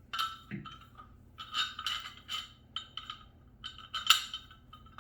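Small metal hardware clinking and rattling as it is handled: a string of irregular sharp clinks, the loudest a little after four seconds in.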